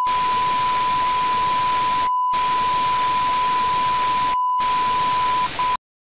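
Loud television-static hiss with a steady high test-tone beep running through it, a glitch sound effect. Both drop out briefly twice, about two and four and a half seconds in. The beep breaks once more and everything cuts off suddenly near the end.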